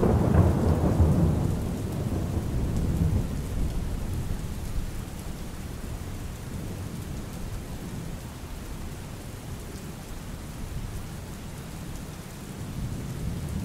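Steady rain with a roll of thunder at the start that rumbles and dies away over the first few seconds; a low rumble builds again near the end.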